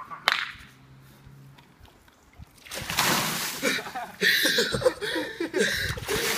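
Buckets of water poured over a seated person, a sudden heavy splash about three seconds in followed by more splashing and pouring.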